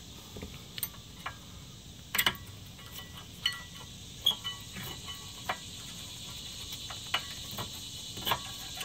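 Irregular sharp metallic clicks and light scrapes as a small screwdriver pries a rear disc brake pad out of its caliper bracket and hardware clips, about a dozen ticks spread unevenly.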